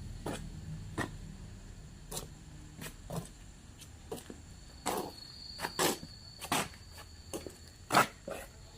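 Irregular knocks and short scrapes from handwork, with several louder ones in the second half.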